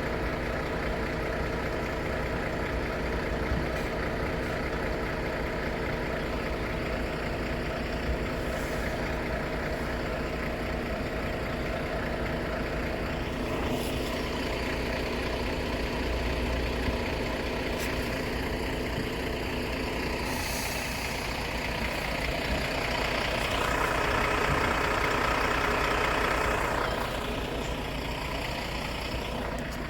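Road vehicle engines running steadily. A louder vehicle passes from about two-thirds of the way in, swelling and then fading.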